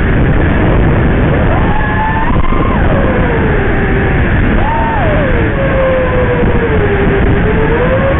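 5-inch FPV racing quadcopter's brushless motors and propellers whining over a heavy rush of prop wash and wind. The pitch rises sharply about two seconds in as the throttle is punched, falls back, jumps briefly again about five seconds in, then wavers lower.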